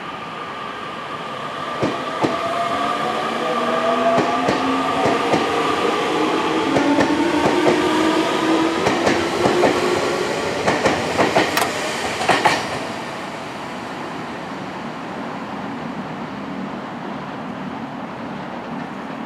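Keio 1000 series electric train pulling out of the platform: its traction motors whine in several tones that rise in pitch as it speeds up, with wheels clicking over rail joints, loudest just before the sound drops away about thirteen seconds in. A steadier, quieter rumble follows.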